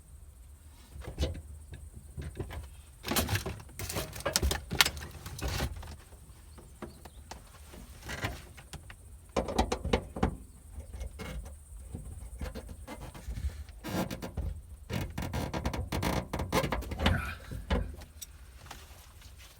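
Irregular handling noise: bouts of rustling, scraping and small clicks coming and going, with short pauses between.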